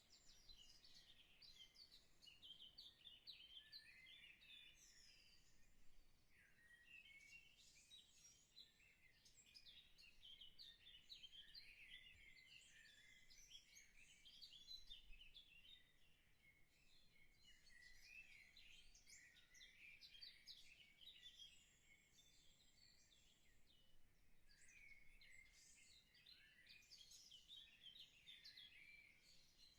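Faint, busy chorus of small birds chirping, many short calls overlapping throughout.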